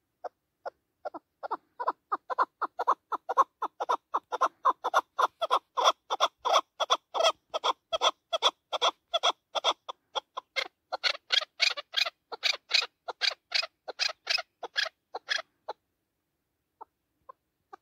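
Chukar partridge calling: a long run of short clucking notes, about four a second, growing higher-pitched and harsher in the second half, then breaking off into a few scattered notes near the end.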